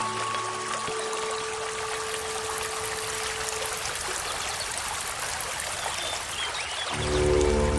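Flowing river water: a steady, even rush. Background music fades out in the first second and comes back about seven seconds in.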